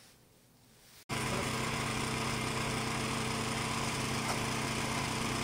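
Near silence for about a second, then a small engine cuts in abruptly and runs steadily at an even pitch.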